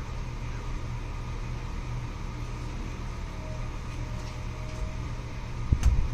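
Steady low mechanical hum with a few fixed tones in it, and a sharp click and thump near the end.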